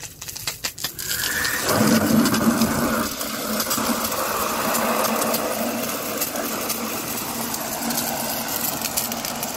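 Garden hose with no nozzle, thumb pressed over the open end, spraying a hard jet of water into a bucket of car soap and water and churning it into thick suds. A steady rushing hiss starts about a second in and grows stronger a little later.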